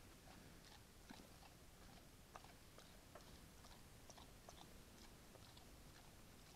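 Faint, irregular crunching and chewing clicks, several a second, from a brown bear feeding close by, over a steady hiss.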